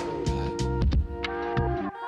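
Background music with a steady beat: drum hits over sustained pitched notes and bass.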